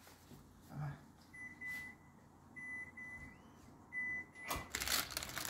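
Baking paper crinkling loudly as the parchment parcel on the baking tray is handled, starting near the end. Before it, a faint high electronic-sounding tone comes and goes several times.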